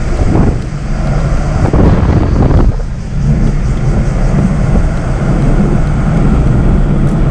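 A road vehicle moving along with its engine hum steady, wind buffeting the microphone in gusts during the first few seconds before settling.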